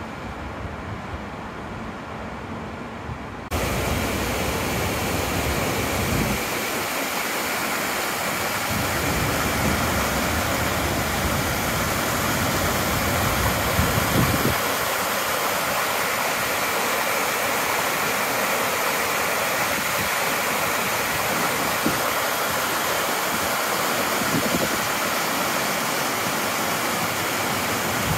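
River Medlock water rushing as a loud, steady hiss that starts abruptly a few seconds in, over a lower rumble.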